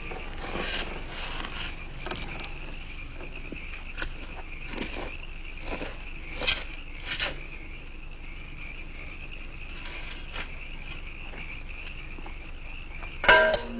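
Steady cricket chirping with a spade thudding and scraping into soil several times. A sudden loud chord hits near the end.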